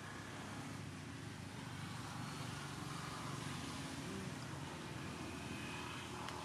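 Steady low mechanical rumble, like a distant engine, under a faint even hiss.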